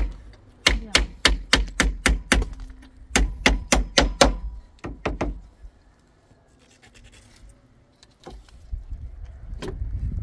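Hammer striking nails into the wooden slats of a small chicken-coop roof: a quick run of sharp blows, about three a second, that stops about five seconds in.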